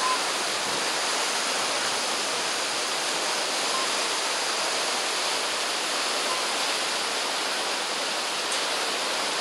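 Whitewater rapids rushing through a concrete artificial slalom channel: a steady, even hiss of churning water.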